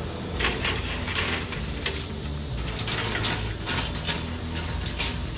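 Plastic model-kit sprues clicking and rattling as they are handled and stacked on top of a small computer case: an irregular run of light clicks and knocks.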